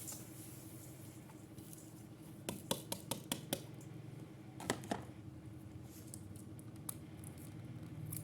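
Kitchenware clinking: a quick run of about five sharp clinks about two and a half seconds in and two more near the five-second mark, over a low steady hum.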